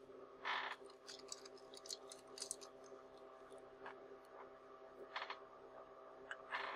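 Faint handling noises from fingers on a camera lens: a soft scrape about half a second in, a run of small clicks, and two more brief brushes near the end, over a faint steady hum.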